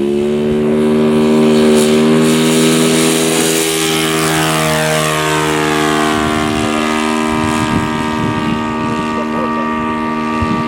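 Engine and propeller of a large radio-controlled Cessna 182 model in flight, a steady drone that swells as the plane passes about two seconds in, its pitch dipping slightly after.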